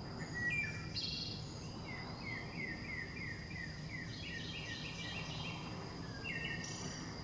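Birds chirping and singing, with a quick run of about seven short falling chirps in the middle, over a steady high insect drone.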